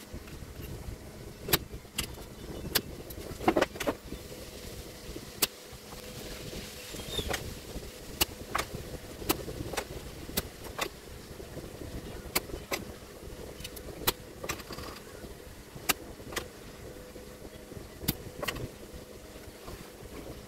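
Spring-loaded desoldering pump being cocked and fired again and again, giving sharp clicks and snaps about once a second, as solder is sucked off the pins of a shorted power MOSFET on a TV power supply board. A low steady noise runs under the clicks.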